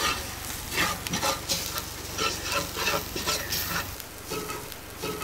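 Onions and ground curry spices sizzling as they fry in oil in a metal pot, with a spoon scraping and stirring them round: the spices being fried until browned, the first stage of a curry.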